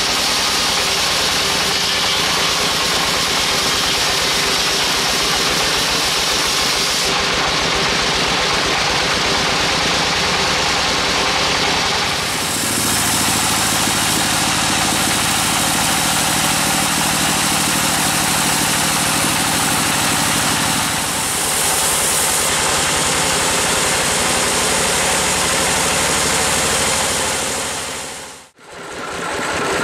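Band sawmill running, its blade sawing through a large log: a loud, steady machine drone with a hiss of cutting that shifts in tone a few times. It cuts out briefly near the end.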